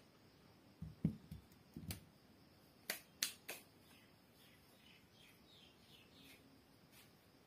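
Plastic portable USB blender bottle handled and set down on a glass counter top: a few dull knocks, then three sharp clicks about a third of a second apart. Faint falling chirps of small birds follow.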